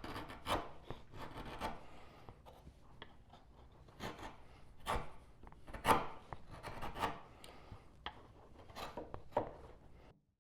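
Hand plane shaving a walnut tenon with short, irregular strokes, about eight of them, to fine-tune the fit of a through tenon. The sound cuts off abruptly just before the end.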